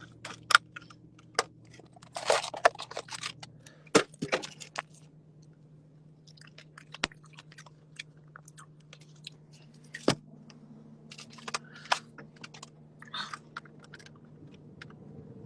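A person chewing and eating fruit salad, with scattered short crunches and clicks over a low steady hum.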